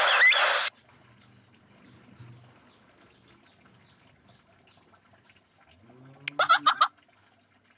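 A loud, hissy bird recording with a few sharp calls cuts off abruptly under a second in. About six seconds in, a greater hornbill gives a quick run of about five loud, harsh calls.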